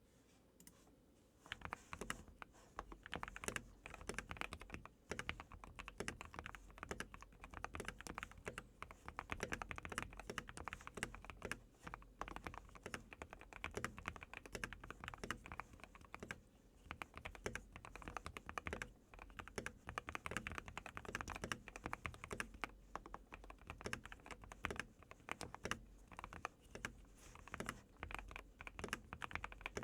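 Continuous fast typing on a Keychron Q1 mechanical keyboard with lubed Everglide Aqua King linear switches, FR4 plate and PBT keycaps, the case tape-modded and foam-filled. Dense key clicks begin about a second and a half in, with short pauses between bursts.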